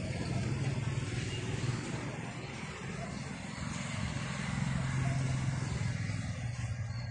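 A motor engine running with a low steady hum over background noise, swelling a little twice.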